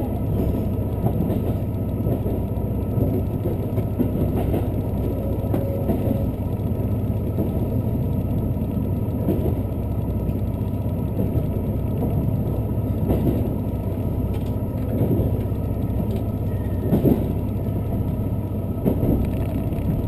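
Onboard sound of a limited express train running along the track: a steady low rumble of wheels and running gear, with an occasional clack as the wheels cross rail joints.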